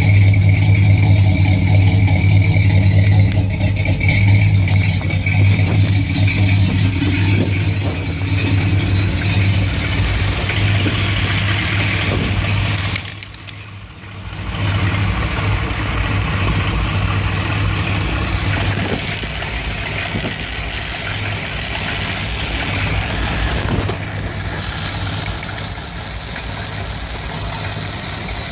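A 1975 Dodge B200 van's Mopar 360 (5.9 L) small-block V8 with a two-barrel carburettor, idling rough when warm and still rough after a new ignition coil. The sound dips briefly about halfway through, then returns.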